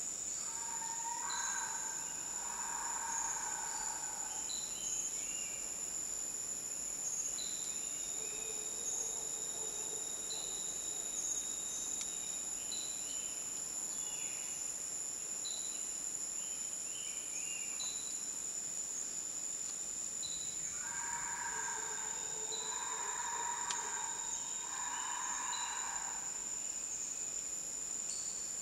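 Tropical forest ambience: insects keep up a steady high-pitched drone throughout, while a short high note repeats about every two and a half seconds. A bird calls near the start and again three times in a row about three-quarters of the way through.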